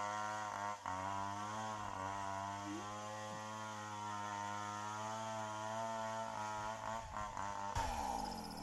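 Chainsaw engine running at high speed as it cuts into a large tree, its pitch wavering slightly under load. Near the end the engine note drops away and a high insect buzz is left.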